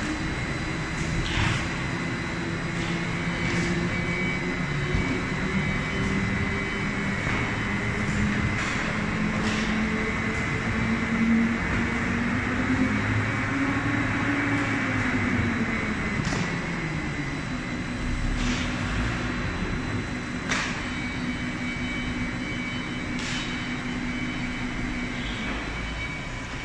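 Spindle veneer rotary lathe and veneer clipper running: a steady mechanical hum whose motor tones slowly climb, then fall away about fifteen seconds in. A sharp clack sounds every few seconds.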